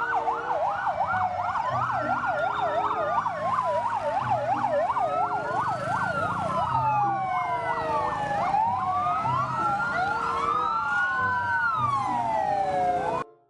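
Several emergency-vehicle sirens sounding over one another, a fast yelp with slower rising and falling wails. They cut off suddenly near the end.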